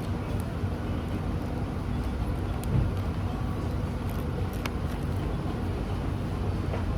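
Steady road traffic noise: a low rumble of car engines, with a couple of faint clicks.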